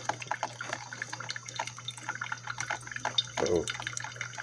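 Coffee dripping and trickling into the glass carafe of a drip coffee maker as it brews: quick, irregular drips over a steady low hum. A short hum of a person's voice comes about three and a half seconds in.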